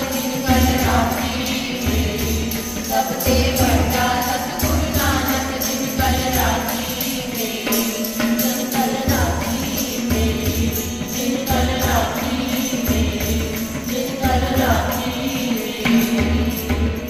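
Sikh devotional kirtan: women singing together over a harmonium drone, with tabla strokes and jingling hand percussion keeping a steady beat.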